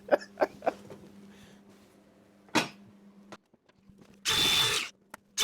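MIG welder striking an arc for a short tack of about half a second near the end, then a brief blip and the start of another weld. The welds crackle because the shielding gas bottle has run out.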